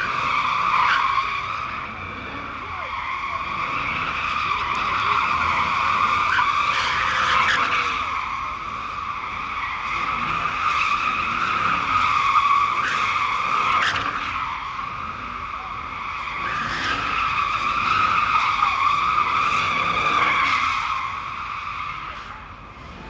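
Car tyres squealing as the car spins donuts: one sustained high screech that swells and fades several times and dies down near the end.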